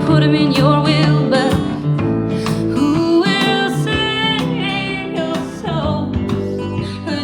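A song with singing and guitar played back through ELAC Debut 3.0 DB63 speakers.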